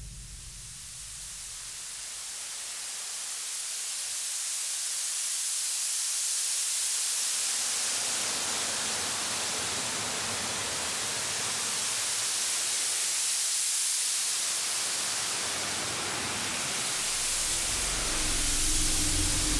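Desert wind: a steady hiss, strongest in the high end, that swells over the first few seconds and then holds.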